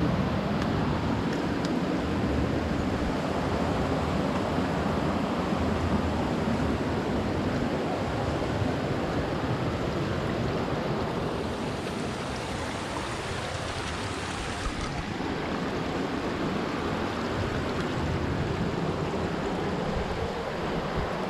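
A waterfall pouring steadily: an even, dense rush of falling water.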